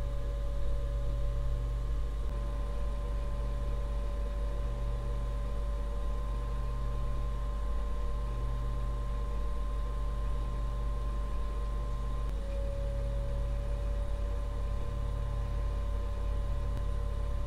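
Desktop PC running with its case open, led by the very loud stock Intel boxed CPU cooler fan: a steady fan hum with a whine. The sound shifts about two seconds in, as the CPU goes from idle to full load under a CPU-Z stress test, and shifts again about twelve seconds in.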